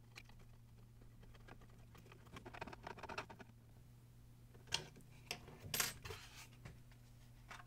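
Faint clicks and light rattles of a small screwdriver driving a 4-40 screw into a 3D-printed plastic part, with a few sharper clicks of the plastic pieces being handled later on, over a low steady hum.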